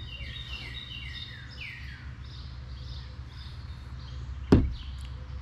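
A songbird singing a quick run of down-slurred chirps for the first two seconds, over a steady low outdoor rumble. A single sharp knock comes about four and a half seconds in.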